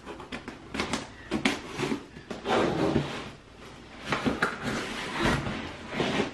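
A cardboard subscription box being slit open and its lid pulled up, with irregular scrapes, taps and paper rustling as the contents are reached.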